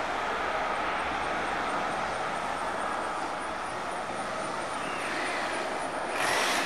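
Twin jet engines of a departing airliner at takeoff power as it climbs away, a steady rushing engine noise. Near the end it is overtaken by a sudden louder rush of noise.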